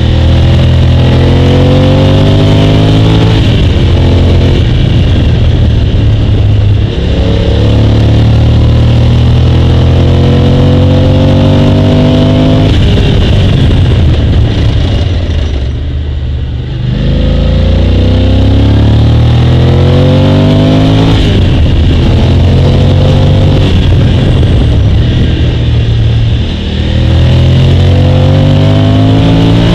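Motorcycle engine recorded on the bike, pulling hard between bends: its pitch rises again and again, broken by short drops at each gear change. There is a longer lift off the throttle about halfway through.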